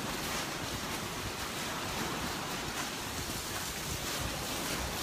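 Steady wash of sea waves and rain, with wind rumbling on the microphone.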